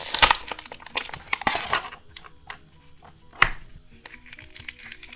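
Plastic toy packaging crinkling and rustling as it is handled for about two seconds, then a few light clicks and one sharp tap about three and a half seconds in. Soft background music plays underneath.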